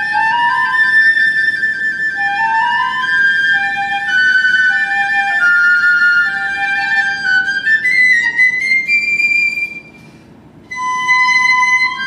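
Two piccolos playing in duet over a soft classical guitar: one holds a long trilled high note while the other moves through a lower line. Near the end comes a quick rising run, a short break of under a second, then both come back in on new held notes.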